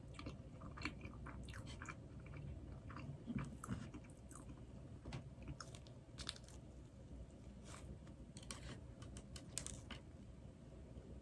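A person chewing and biting Krispy Kreme doughnuts close to the microphone, with many short wet mouth clicks scattered irregularly.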